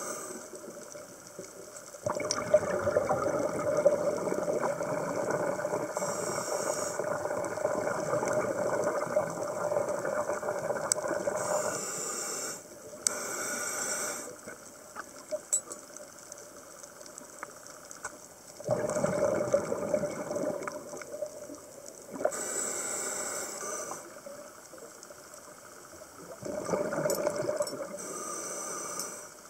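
Scuba diver breathing through a regulator underwater: long bubbling exhalations alternate with shorter hissing inhalations, several times over.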